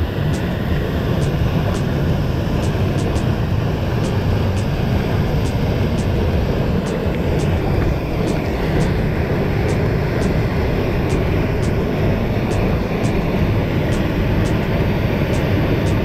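Waterfall: a steady, loud rush of falling water with no change.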